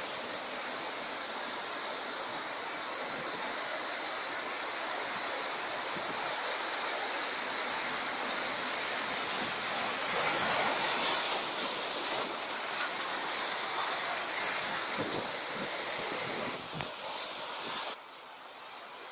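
Heavy storm surf breaking and rushing over a rocky boulder shoreline, a continuous wash of water noise that swells louder about ten seconds in. Near the end it drops suddenly to a quieter background.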